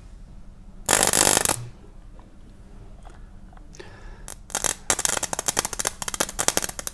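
Electric arcing at a loose copper conductor joint wetted with salt water, carrying a heavy load current of nearly 18 amps: a series arc at a loose connection. A loud crackling burst comes about a second in, then a rapid run of crackles and snaps through the last few seconds.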